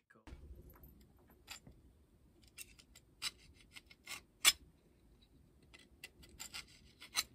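Steel caliper jaws scribing a center line along the Sharpie-blackened edge of a steel knife blank: faint metal-on-metal scratches and light clicks, scattered through, with the sharpest click about four and a half seconds in.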